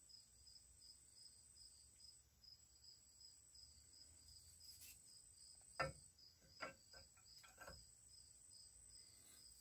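Near silence with a faint, high chirp repeating about four times a second. About six to eight seconds in come a few light metallic clicks as a connecting rod cap is handled onto a crankshaft journal.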